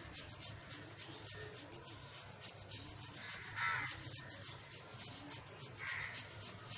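Cheese being grated on a small flat metal hand grater over a sandwich: rapid, even scraping strokes, several a second.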